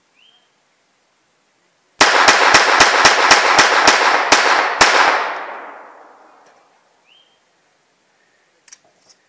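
A scoped semi-automatic pistol fired rapidly, about a dozen shots at roughly four a second, starting about two seconds in, with the report ringing away over the next couple of seconds. A few light clicks follow near the end as the pistol is handled.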